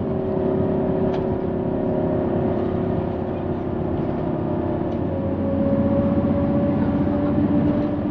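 Car engine and road noise heard from inside the cabin of a moving car, a steady hum whose pitch slides and shifts about five seconds in.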